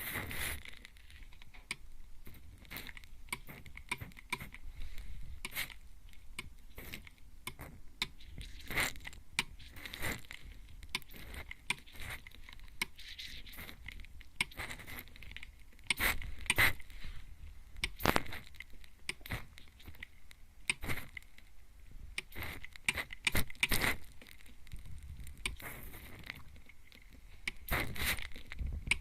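Mist spray bottle spritzing at close range into a microphone ear: a long run of short, hissy sprays at an uneven pace, about one or two a second, a few of them louder.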